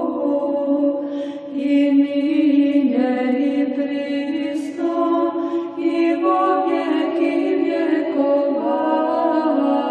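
Orthodox church chant: voices singing slow, long-held notes that step from pitch to pitch without a break.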